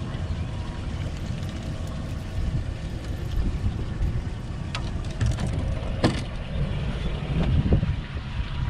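Steady low rumble of wind buffeting the microphone on an open boat, with a few sharp knocks about five and six seconds in as a bass is swung aboard.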